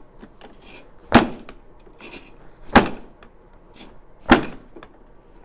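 Hard plastic knocks and clicks with short rustles as an upright vacuum cleaner's bag compartment is opened and the dust bag handled, the motor off. Three sharp knocks stand out, about a second and a half apart.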